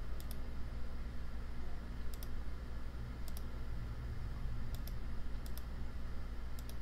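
Computer mouse button clicking: about six short press-and-release clicks at irregular intervals, over a steady low hum.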